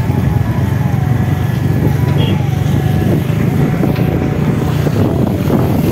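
Motor scooter running at riding speed on a rough dirt road, with army trucks' engines close by: a steady low rumble, with a faint whine that slowly drops in pitch over the first few seconds.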